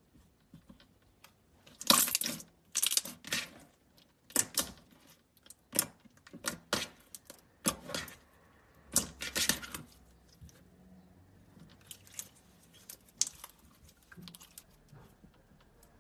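Slime being squeezed and stretched by hand, making irregular short pops and crackles that come thick and fast for the first ten seconds or so, then grow sparser and fainter.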